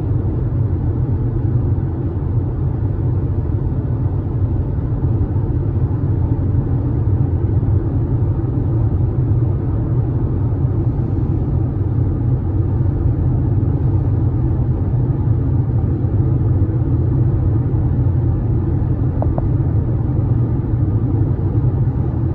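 Steady low rumble of a car driving at highway speed: tyre and engine noise.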